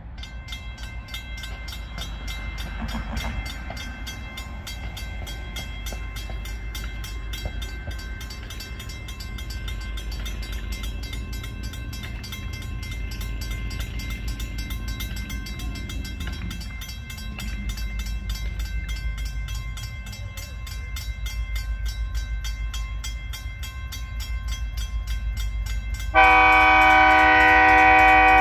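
Railroad grade-crossing bell ringing steadily with rapid, even strikes as a train approaches, over a low rumble. Near the end, an approaching diesel locomotive's air horn sounds a loud, sustained chord that drowns out the bell.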